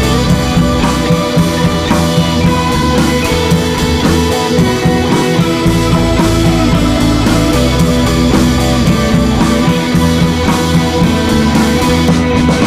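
Background rock music with electric guitar and drums, loud and steady throughout.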